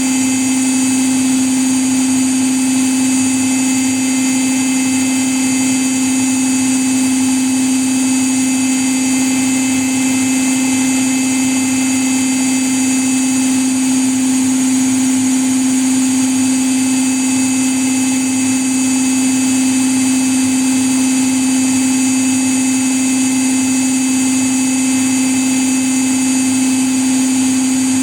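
Washing machine running a spin at steady speed: a constant motor whine with a steady hum of the spinning drum, holding the same pitch throughout.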